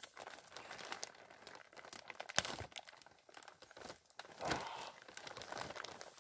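Heavy 6-mil plastic drum liner, stretched as a bed between wooden poles, crinkling and crackling as a man's full weight shifts onto it while he lies back. One sharp crack comes about two and a half seconds in.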